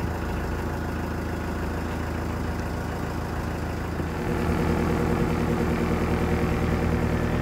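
Narrowboat engine running steadily at a slow cruising pace. About four seconds in it becomes louder, with a regular pulsing beat.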